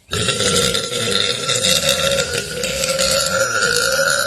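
One long, loud burp held unbroken for over four seconds, steady in pitch with a rough low end.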